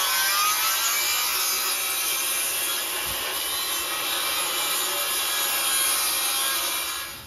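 Handheld circular saw ripping a long cut along a 2x lumber board, running steadily through the wood and stopping shortly before the end. It is cutting a taper along the board for a sloped channel form.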